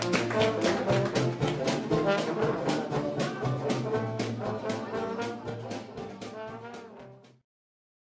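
Dixieland jazz band playing over a steady beat; the music fades out and stops about seven seconds in.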